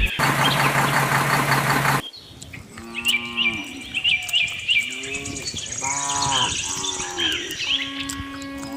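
Farm ambience: cattle mooing in several short calls, with birds chirping repeatedly over them. The first two seconds are a louder, dense hiss-like noise with a low hum.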